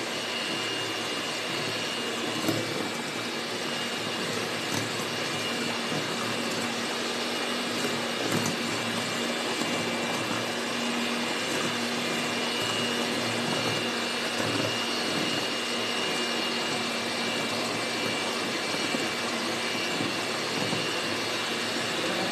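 Electric hand mixer running steadily at constant speed, a steady motor whine with its beaters whisking cake batter in a bowl, and a brief knock about two and a half seconds in.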